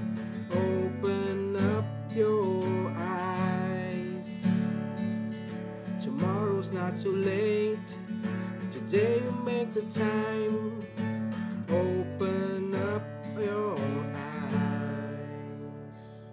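Acoustic guitar in an alternate tuning, strummed and picked in an instrumental passage of ringing chords with a melody over them. It grows quieter near the end.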